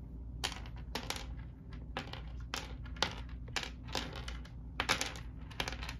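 Small plastic game figures clattering onto a wooden tabletop, an irregular run of short clicks and rattles in quick clusters.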